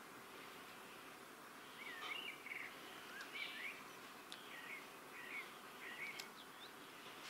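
Faint common starling calls: a string of short whistled notes, some bending up and down in pitch, with a few sharp clicks among them.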